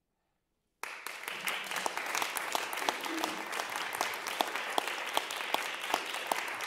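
Audience applauding, starting suddenly about a second in after a short silence, with many sharp individual claps.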